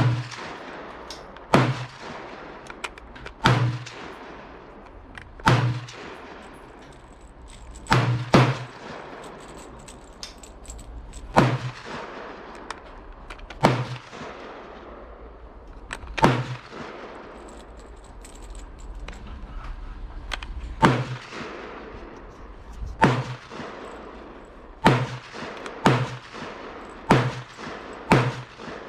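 Gunshots fired one at a time on a shooting range, about fifteen in all, each a sharp crack with a short echo tail. They come one to three seconds apart and follow more quickly near the end.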